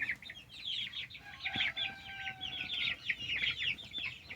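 Flock of young Cornish cross meat chickens peeping continuously: many short, high, downward-sliding cheeps overlapping, with one longer, steadier call a little after a second in.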